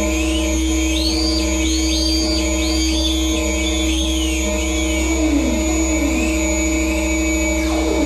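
MFOS Weird Sound Generator analog synthesizer putting out a steady electronic drone with a low hum under it, while high pitches sweep up and down over and over, echoed by a delay pedal. A few falling glides come in lower down in the second half.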